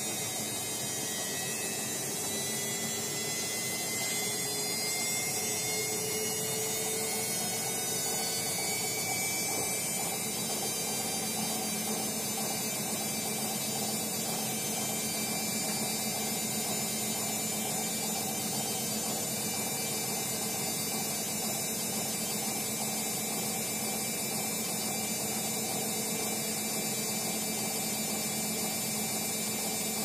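Hotpoint Ariston front-loading washing machine spinning its drum near the end of a quick wash cycle. The motor whine rises in pitch over the first ten seconds as the drum speeds up, then holds a steady hum and whine at spin speed.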